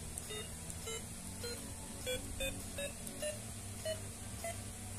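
LeapFrog Chat & Count toy smartphone beeping: a string of short electronic beeps, about two a second, each stepping a little higher in pitch.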